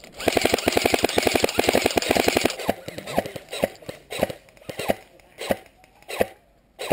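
Airsoft rifle firing close by: a full-auto burst of about two and a half seconds at roughly fourteen shots a second, then about nine single shots spaced roughly half a second apart.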